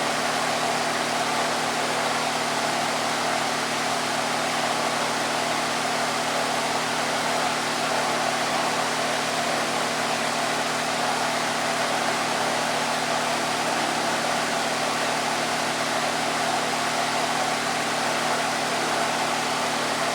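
Electric fan running steadily: an even rush of air noise with a faint low hum underneath.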